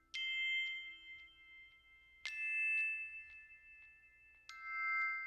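Three ringing metallic dings about two seconds apart, each struck sharply and left to ring on with the same bell-like tones.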